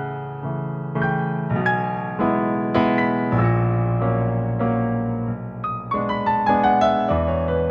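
Solo piano playing ballet class accompaniment for a tendu exercise, notes struck in a steady metre, with a run of notes stepping downward near the end.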